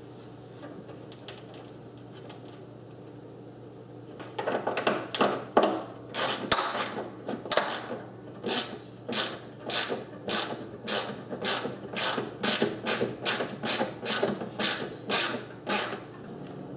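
Ratchet wrench clicking in quick repeated strokes, about two a second, tightening a nut onto a bolt through the mower deck and plastic grass-catcher chute. The strokes start about four seconds in, after a few light clicks.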